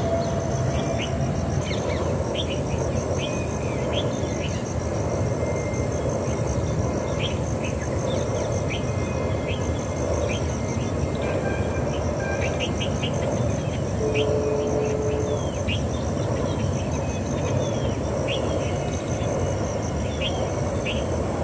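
Outdoor birdsong and insects: many short, sharp bird calls scattered throughout over a steady, rapidly pulsing insect trill, with a constant low rumble underneath.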